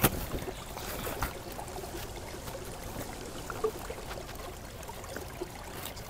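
Large banana leaves rustling and crackling as they are handled and folded, with a few sharper crinkles near the start and about a second in, over a steady faint hiss.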